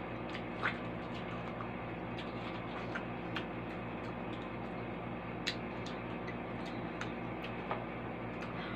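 A steady low hum with a few soft clicks and crunches of watermelon flesh being bitten off the rind and chewed, the sharpest about two-thirds of a second in and again about five and a half seconds in.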